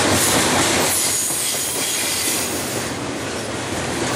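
Double-stack intermodal freight cars rolling past: a steady rush and rattle of steel wheels on the rails, with a faint high wheel squeal.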